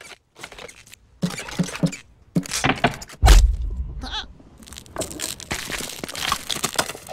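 Cartoon sabre-toothed squirrel stamping an acorn down into ice. A run of short knocks comes first, then a heavy thud about three seconds in. After that the ice cracks and crunches.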